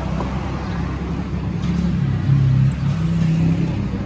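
Steady low engine rumble of a motor vehicle, swelling louder for about half a second around two and a half seconds in.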